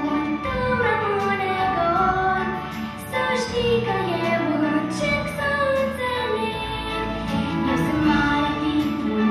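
A girl singing a Romanian ballad into a microphone over instrumental accompaniment, her melody falling in long phrases over steady held notes beneath.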